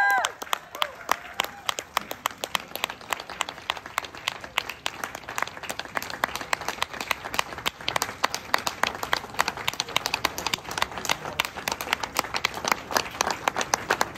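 Audience applauding: many hands clapping in a dense, unbroken patter.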